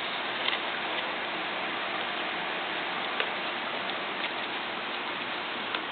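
Steady background hiss with a few faint, scattered clicks and taps from handling a paper bolt-action toy rifle.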